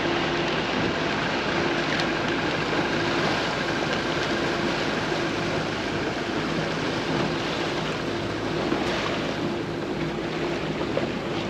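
Boat engine running steadily under way, its low hum mixed with the rush of wind and water against the hull.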